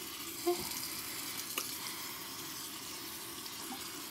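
Water running steadily from a bathroom sink tap while hands are washed under it, with a couple of small clicks.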